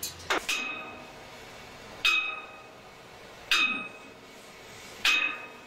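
Sledgehammer striking steel on a straw reaper: a couple of light knocks at the start, then three heavy blows about one and a half seconds apart, each with a short, clear metallic ring.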